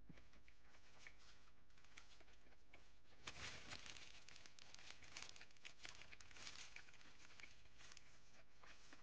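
Faint crinkling and rustling of a paper napkin pressed to the mouth and wiped, starting about three seconds in and lasting a few seconds as many small crackles.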